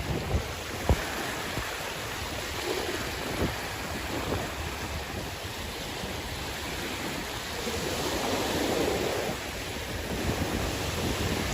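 Sea waves washing in, with a broad swell of surf about eight seconds in, and wind buffeting the microphone with a few low knocks near the start.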